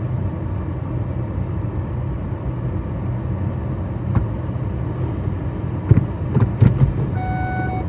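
Low, steady rumble of a car creeping along, heard from inside, with a few knocks about six to seven seconds in. Near the end a parking-sensor warning tone comes on and holds steady, the sign of an obstacle very close while reversing.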